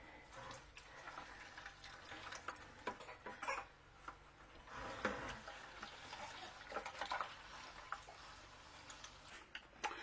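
Wash water draining by gravity from a mini twin-tub washing machine's drain hose into a plastic bucket: a faint pouring trickle, with a few small knocks.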